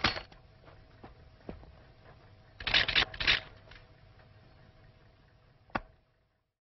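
A quick cluster of three or four loud clattering knocks about three seconds in, and one sharp knock near the end, over a faint steady hum. Then the sound cuts out to silence.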